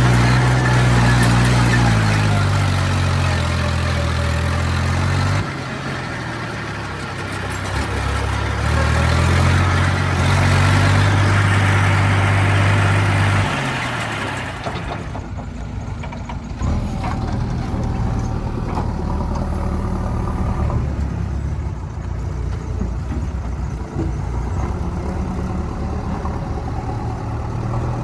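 Heavy diesel engines of a JCB 3DX backhoe loader and tractors running. The engine note is loud through two long spells, then goes quieter and steadier after about 15 seconds.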